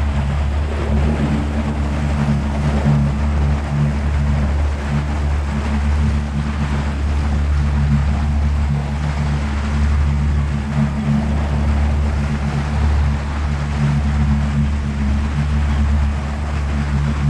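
Boat motor running steadily at cruising speed, a low even hum, with water rushing and splashing along the hull.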